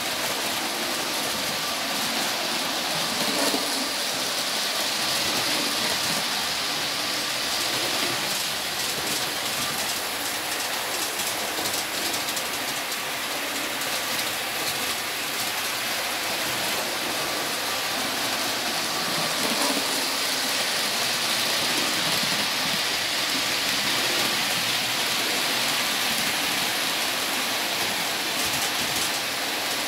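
OO gauge model trains running on a layout: a steady rushing hiss of metal wheels rolling on the track, swelling twice as trains pass, with rapid rail clicks near the end as a rake of tank wagons goes by.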